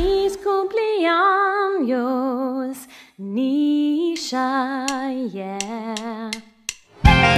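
A woman's voice singing a slow melody alone, with vibrato on the held notes and short pauses between phrases. Near the end, full backing music with guitar comes in.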